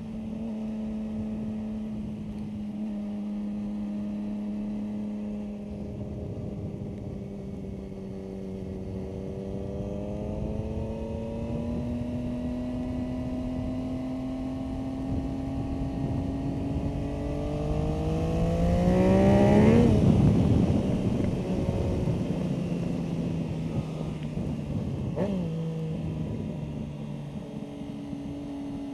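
Motorcycle engine heard on board at speed on a track, running steady and then rising slowly in pitch as the bike accelerates, to its loudest about twenty seconds in. The pitch then drops suddenly as the rider eases off. A brief sharp blip a few seconds later fits a downshift, and the engine pulls up in pitch again near the end.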